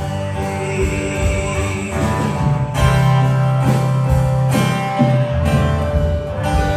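Live band playing an instrumental passage: guitar over a steady bass line and long held chords, with no singing.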